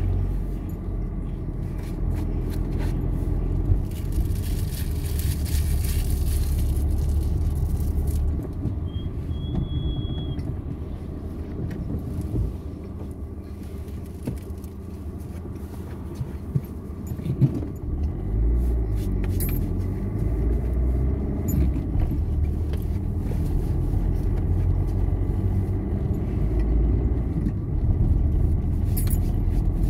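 Car engine and tyre noise heard from inside the cabin while driving in traffic, a steady low rumble that drops for a few seconds in the middle and picks up again. A burst of hiss comes about four seconds in, and a few light clicks later on.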